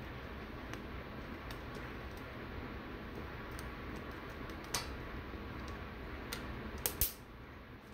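Gas stovetop burner flame hissing steadily under poblano peppers charring on the grate, with scattered small crackles. Metal tongs clack against the peppers and the cast-iron grate, with a sharp click about five seconds in and two more near seven seconds. The hiss drops slightly after the last clicks.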